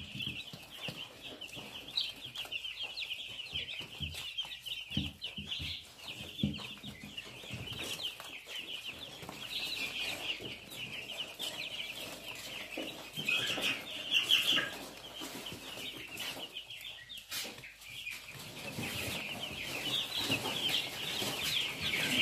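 A flock of young chicks peeping continuously, many short high peeps overlapping, swelling louder near the end. Soft low knocks sound now and then in the first few seconds.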